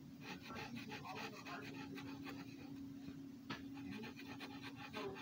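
Red Sharpie marker nib scratching across paper in quick short strokes, several a second, as an area is filled in with colour, over a steady low hum.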